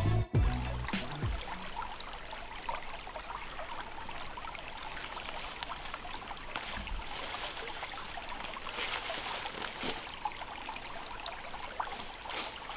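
Shallow creek water trickling over rocks, a steady even burble.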